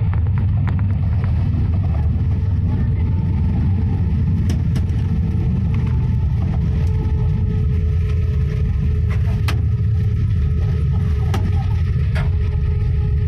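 Steady low rumble heard inside the cabin of an Airbus A320 rolling along the runway after landing, from its engines and wheels, with a faint steady hum over it and a few light clicks.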